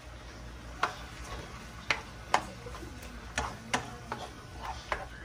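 A cooking spoon stirring vegetables through coconut milk in a nonstick frying pan, knocking against the pan in sharp, irregular clicks, about eight of them.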